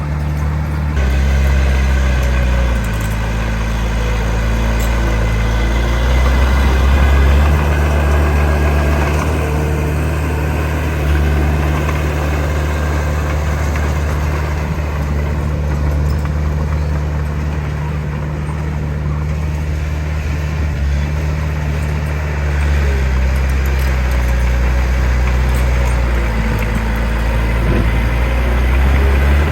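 Heavy diesel engine of construction machinery running under changing load, its low drone stepping up and down in pitch every few seconds as the throttle and load shift.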